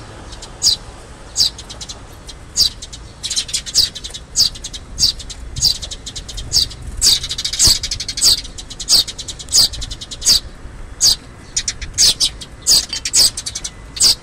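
Eurasian tree sparrows calling: a steady run of short, high, down-slurred chirps, about two a second, the insistent begging calls of fledglings asking to be fed. A low rumble sits underneath.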